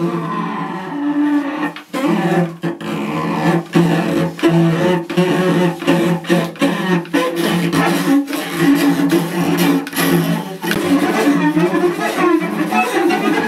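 Cello played in free improvisation with extended technique, the player's fingers working the strings near the bridge: low pitched tones that stutter, broken by many short stops and clicks.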